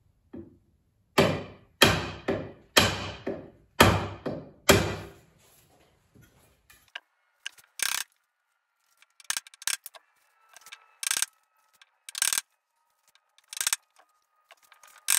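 A freshly carved wooden axe handle struck hard on its end about eight times in quick succession, seating the double-bit axe head onto the handle with sharp, solid knocks. This is followed by quieter, scattered taps and knocks as the axe is handled.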